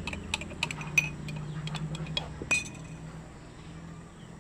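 A metal spoon clinking repeatedly against a glass, a quick irregular run of sharp clinks that stops about two and a half seconds in. This happens as half a spoon of salt goes into squeezed lemon juice.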